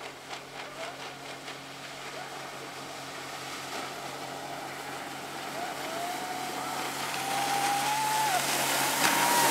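Boat engine running with a steady low hum that grows louder. In the last few seconds a wavering, gliding tone rises over it.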